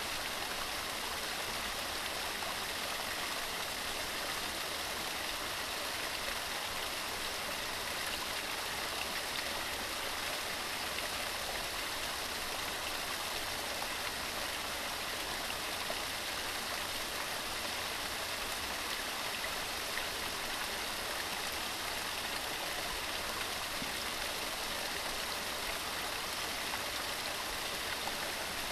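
Waterfall: water falling and running steadily, an even hiss without breaks or changes.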